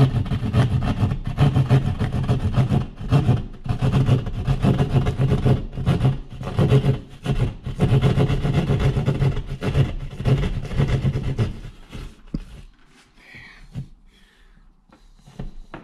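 Serrated hand jab saw sawing through drywall in rapid back-and-forth strokes, stopping about twelve seconds in; after that only a few light clicks and scrapes.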